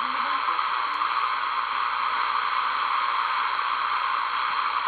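Steady shortwave static, an even hiss, from an RTL-SDR receiver running HDSDR and tuned to 15 MHz, the WWV time-signal frequency; the time signal is not clearly heard above the noise.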